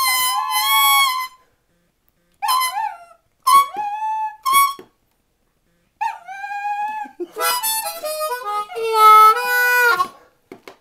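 Blues harmonica playing short phrases of bent notes with pauses between them, and a dog howling along. The playing stops about ten seconds in.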